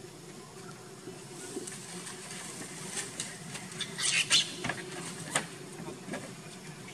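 Young macaques scampering and scuffling on wooden roof boards. Scattered scratches and taps, with a cluster of louder, sharper scuffling sounds about four seconds in, over a faint steady hum.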